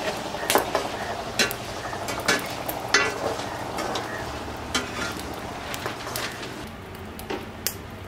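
Metal ladle clinking and scraping against a metal kadai while stirring drumstick pieces frying in oil, with irregular sharp clinks about once a second over a steady sizzle.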